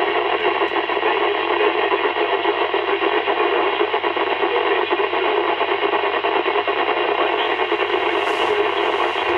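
Amateur radio transceiver's speaker giving out loud, steady interference noise with several fixed tones in it: heavy man-made QRM, which turns out to come from a battery charger, drowning out a weak station's signal.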